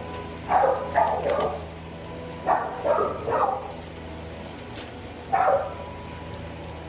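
A dog barking: seven short barks in three bunches, three quick ones, then three more, then a single bark, over a steady low hum.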